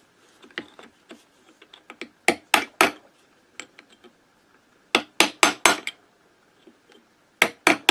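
Hammer striking a pin punch to flatten the bent tab of the lock washer on the clutch nut of a Minarelli AM6 engine, freeing the nut to be undone. The strikes are sharp metal taps in three short runs: three about two seconds in, five about five seconds in, then three more near the end.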